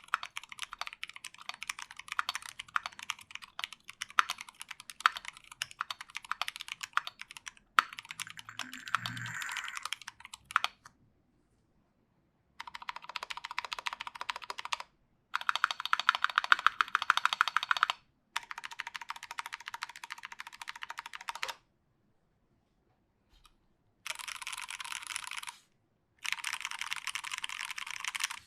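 Fast typing on a Duck Viper v2 mechanical keyboard with lubed Zealios v2 65g tactile switches in a stainless steel plate and GMK keycaps: a dense run of crisp key clicks. The typing breaks off abruptly a few times into dead silence and picks up again.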